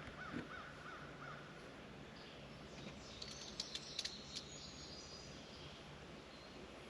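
Faint birds calling: a short run of repeated up-and-down notes near the start, then a quick cluster of sharp chirps and clicks about halfway through.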